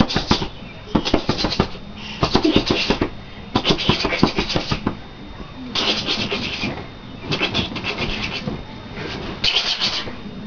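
Children's shrieking, breathy laughter in about seven short bursts with pauses between.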